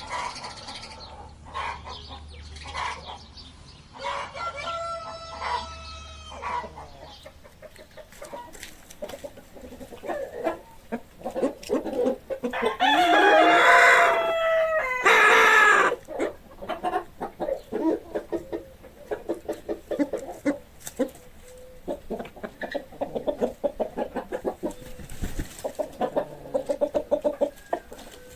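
Chickens clucking throughout, with a rooster crowing loudly about halfway through.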